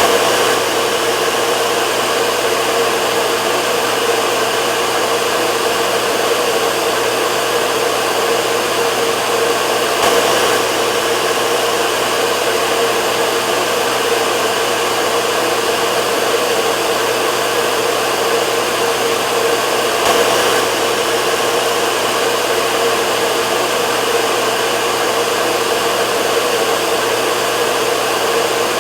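Hair dryer running steadily: a constant rush of blown air with a steady hum in it.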